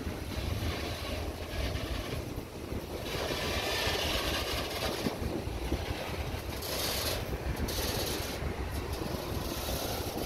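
Freight train cars rolling past on the rails: a steady low rumble with several swells of higher hiss, about three seconds in, near seven seconds and near nine.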